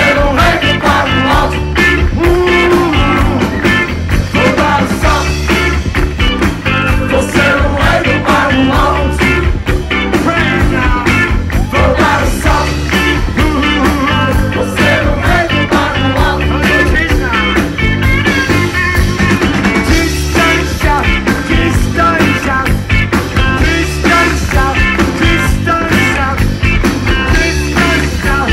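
A rock band playing live, with drums, electric bass, electric guitar and keyboards over a steady beat, heard from within the crowd.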